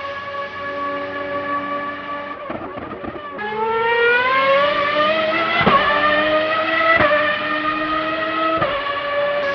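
Racing car engine sound effect: a high-revving engine holds a steady note, breaks up briefly, then climbs in pitch as it accelerates, with sudden drops at gear changes around the middle and again near the end.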